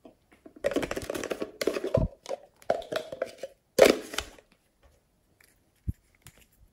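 Hands rummaging among and lifting hard plastic containers, a dense clatter and crackle loudest about four seconds in. Then a few faint clicks and a soft knock as a small plastic tube is opened.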